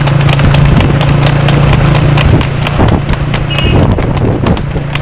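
A harness horse pulling a cart trots fast on asphalt, its hooves clip-clopping in an even beat of about five strikes a second over a steady low hum.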